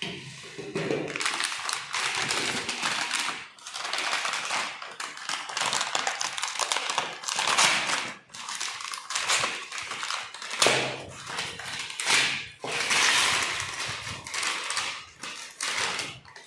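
Parcel packaging being opened and handled by hand: continual rustling and crackling with many scattered clicks and taps.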